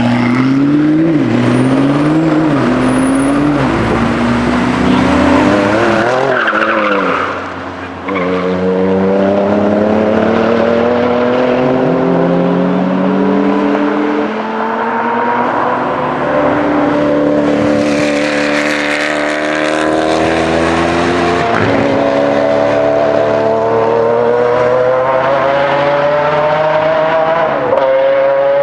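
A supercar engine is revved up and down several times, then accelerates hard, its pitch climbing for long stretches and dropping back at each of several upshifts.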